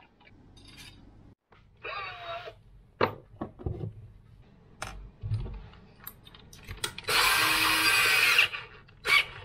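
Cordless power drill: a short whine from a quick trigger pull, clicks of drill bits being handled, then the drill's motor running for over a second as a bit is fitted into its chuck, and a brief last burst near the end.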